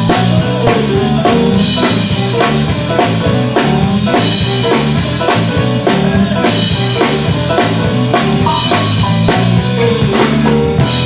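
Live gospel band playing: a drum kit keeps a steady beat over a repeating bass line and electric guitar.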